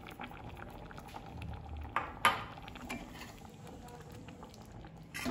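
Thick brinjal curry simmering in a kadhai, bubbling with many small pops. A metal spoon knocks sharply against the pan a couple of times about two seconds in.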